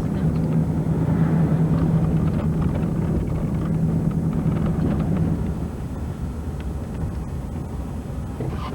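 Vehicle driving, with engine and road rumble heard from inside the cabin. A steady low hum fades out about five and a half seconds in, and the rumble gets a little quieter.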